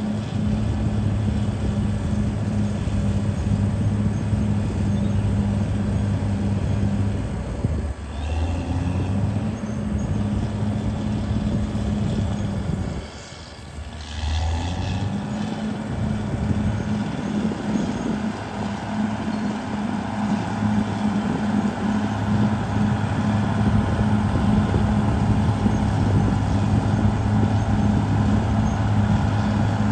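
Caterpillar D6R XL bulldozer's diesel engine running with a steady drone. It sags in pitch about eight seconds in and drops away briefly around the middle before picking back up.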